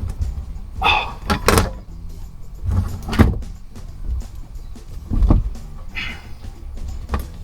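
Knocks, clunks and scraping of metal parts being handled during work on a car's fuel tank and pump, about five separate thuds over a steady low rumble.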